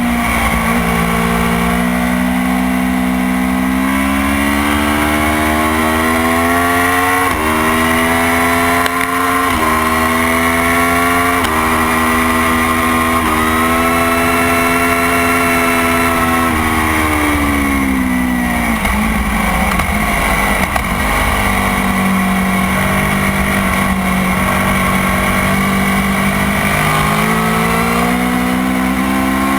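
Motorcycle engine at full throttle on a race track, its pitch climbing and dropping back sharply at four upshifts in quick succession. Then the revs fall away as it slows, hold steady for a few seconds, and climb again near the end.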